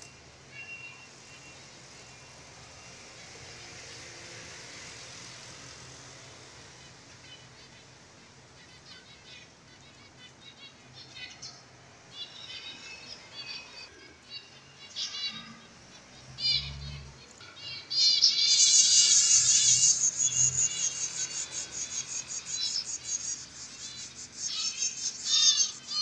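Zebra finches calling: short nasal high-pitched beeps, sparse at first, thickening into loud, dense chattering over the second half.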